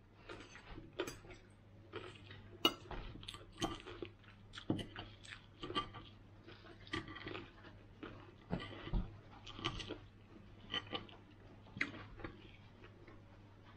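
Close-up chewing and mouth sounds of someone eating fried lamb chop and salad, with irregular small clicks and scrapes of a fork against a plate.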